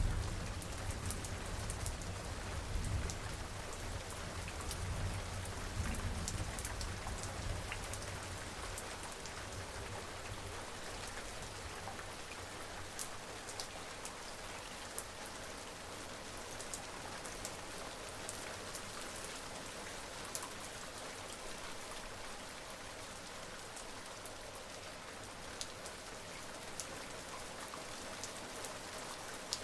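Steady rain falling, with individual drops ticking onto a surface. A low rumble of distant thunder is dying away over the first several seconds.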